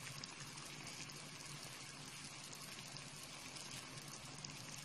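Pot of chicken legs boiling in water: faint, steady bubbling with small pops.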